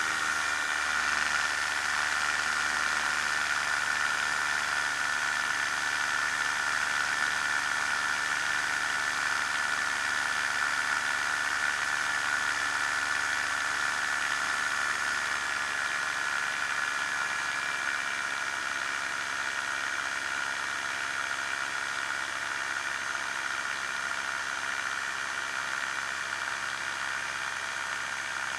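Challenger II ultralight's engine and propeller running steadily in flight, with rushing air.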